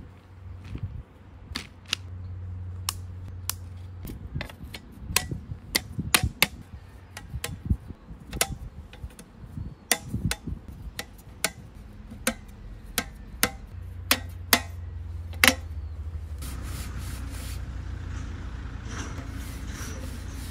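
Camping gear being handled: an irregular string of sharp clicks and knocks for most of the time, giving way to a steady rubbing, rustling noise in the last few seconds.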